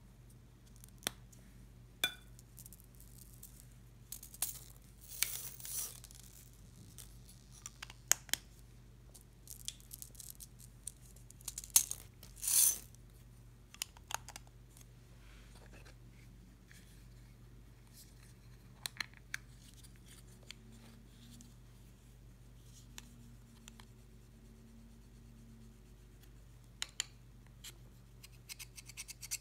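Glitter shaken and small beads poured from plastic tubes into a glass bowl of slime: scattered light clicks and taps of the tubes and caps, with two brief sandy hisses of pouring, the second the louder. Near the end, a few more clicks and scrapes as an eyeshadow pan is handled over the bowl.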